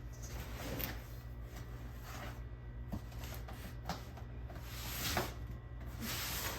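Handling of a large cardboard shipping box as it is being opened: scattered knocks and taps with short rustling and scraping sweeps, over a steady low hum.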